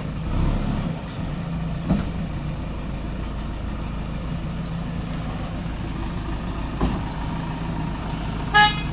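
Heavy diesel engine running steadily, with a couple of short knocks and one brief vehicle horn toot near the end.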